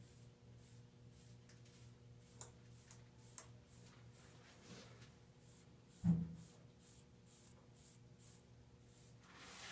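Faint, repeated scratchy strokes of a hair-grooming tool dragged through short, waved hair, with a single low thump about six seconds in.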